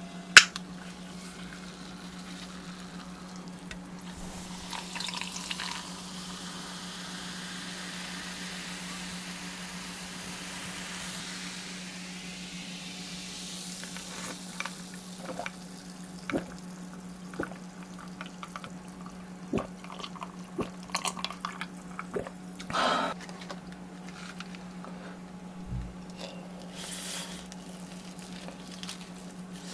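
Food and its packaging being handled close to the microphone before eating: a soft rustling hiss for several seconds, then scattered small clicks, taps and sticky sounds. A steady low electrical hum runs underneath.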